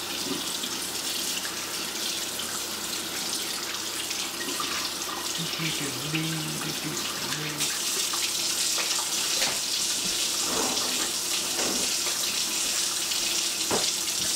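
Kitchen faucet running steadily, the stream splashing into the sink basin as hands are rubbed and washed under it.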